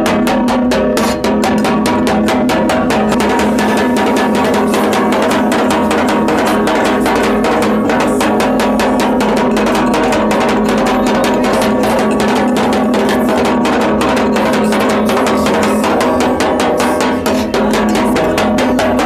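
Background music with a fast, even drum beat over a steady held tone.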